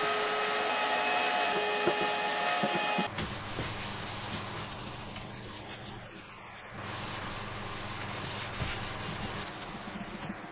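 A shop vacuum runs steadily, its hose nozzle drawn over the wooden cabinet, and cuts off abruptly about three seconds in. After that a cloth rubs a finish over the wood in long wiping strokes, with a low hum underneath.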